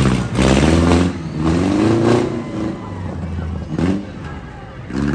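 Off-road tough truck's engine revving hard in several surges, its pitch climbing and dropping with each blip of the throttle.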